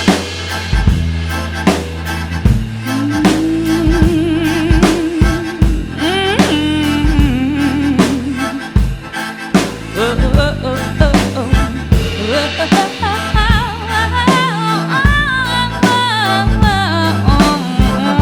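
Background music: an instrumental stretch of a soul song, with a steady drum-kit beat, bass, and a wavering melodic line.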